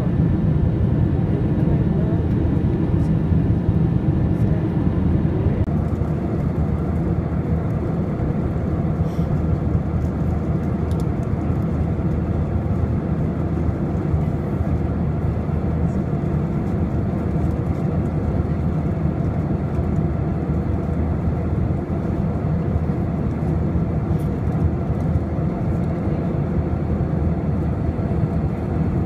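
Steady roar of an Airbus A321's jet engines and rushing air, heard inside the cabin at a window seat over the wing. About six seconds in the sound shifts slightly, with less hiss on top.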